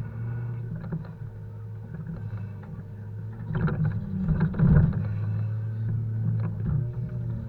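Volvo FH 520 logging truck's engine running steadily during unloading, with a loud stretch of knocking and clattering a little past halfway as poplar logs are handled.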